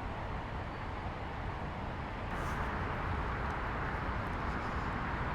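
Steady outdoor background noise: wind rumbling on the microphone mixed with traffic noise, growing slightly louder about two seconds in.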